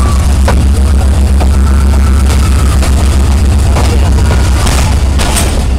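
Diesel-electric locomotive engine running with a loud, steady low rumble, with a few clanks and knocks over it.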